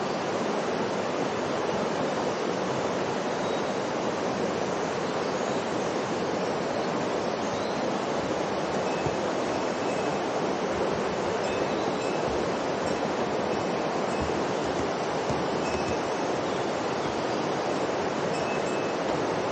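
Mountain river rushing: a steady, even noise of flowing water.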